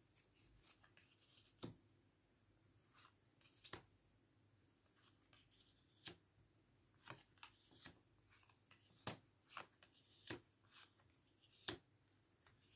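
Faint, scattered clicks and taps, about a dozen, as photocards are set down and slid into place on a tabletop.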